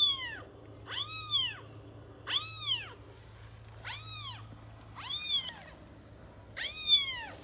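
Kitten meowing repeatedly, six high-pitched meows about a second and a half apart, each rising and then falling in pitch.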